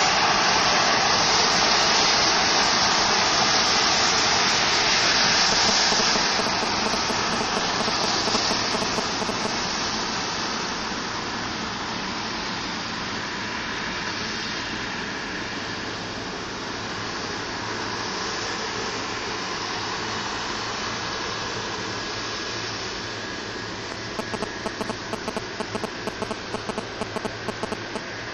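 Boeing 747-200 jet engines running with the aircraft on the ground: a steady rushing jet noise, loudest for the first six seconds, then easing off and holding steady. Near the end there is a quick run of short clicks.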